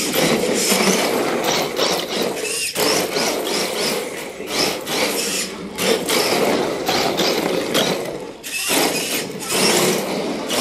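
Exceed RC Drift King radio-controlled drift car sliding on a hardwood floor: its hard drift tyres squeal and scrub and its small electric motor whines under throttle. The sound comes in stretches of about three seconds, easing off briefly about a quarter, halfway and four-fifths of the way through as the car changes direction.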